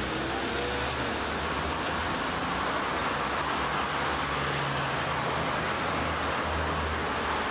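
Steady background traffic noise: a constant wash of road noise with no distinct events standing out.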